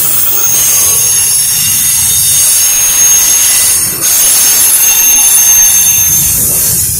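Double-stack container freight train rolling past, the loud steady rumble of its cars overlaid with a thin, high-pitched squeal of wheels on the rails.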